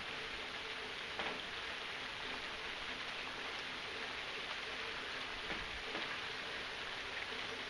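Steady rain falling: an even hiss with a few faint drip ticks.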